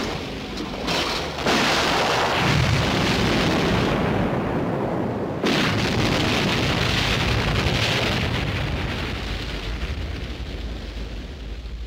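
Two explosions of a helicopter. The first comes about a second and a half in, and the second about four seconds later as the wreck goes up in a fireball. Each is a sudden blast followed by a long, deep rumble that slowly fades.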